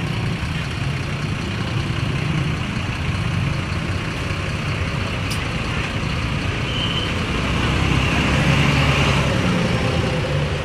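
Road traffic with heavy engine rumble, steady at first and growing louder about eight seconds in as a large vehicle, most likely a bus, comes close.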